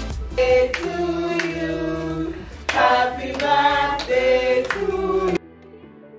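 Singing voices with hand claps, a song in held notes and short phrases that cuts off abruptly about five seconds in.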